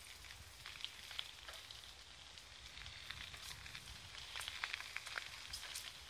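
Bicycle tyres rolling over a gravel dirt path: a faint, irregular crackle of grit and small stones, with a low rumble underneath.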